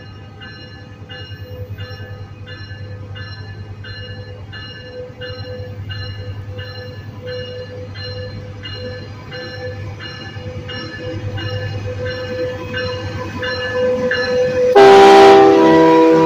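Metrolink F125 Tier 4 diesel locomotive approaching with its bell ringing, about one and a half strokes a second, over the low hum of the engine. About fifteen seconds in its K3L air horn sounds loudly, a chord of several notes held together.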